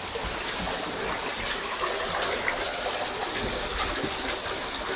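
Shallow stream of running water trickling and babbling steadily.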